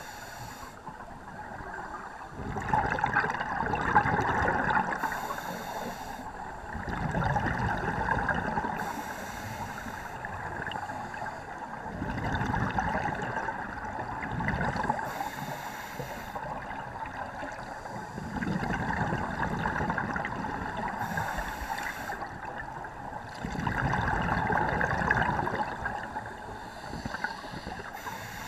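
Scuba diver breathing through a regulator, heard underwater: about five breaths, each a short hiss on the inhale followed by a couple of seconds of bubbling rumble as the exhaled air vents out.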